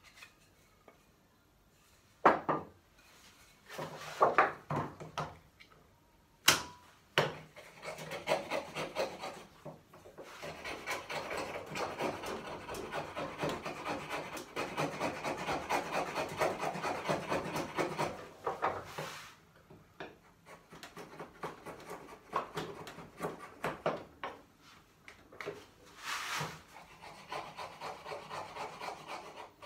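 A hand tool scraping across wood in quick, even strokes as a tenon of a corner bridle joint is trimmed. There are two sharp knocks in the first few seconds, and the stroking is steadiest from about eight to eighteen seconds in, then comes in shorter runs.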